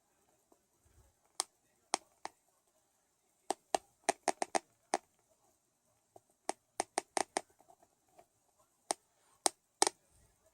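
Teeth clacking together in bruxism: sharp, irregular clicks, some single and some in quick runs of four or five, about two dozen in all.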